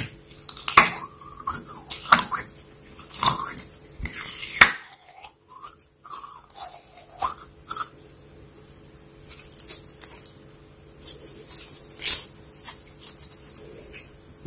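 Slime being squished and pressed, making irregular sticky clicks and crackles, with a brief lull about five seconds in.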